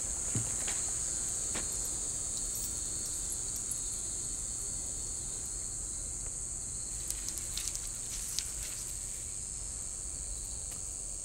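Steady high-pitched insect chorus, with a few light clicks about seven to eight and a half seconds in.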